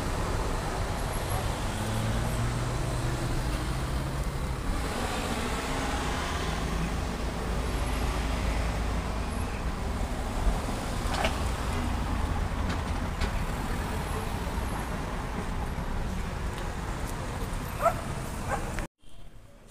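Steady street traffic noise, a low rumble of passing cars, with a couple of brief sharp sounds about eleven and eighteen seconds in; it cuts off abruptly near the end.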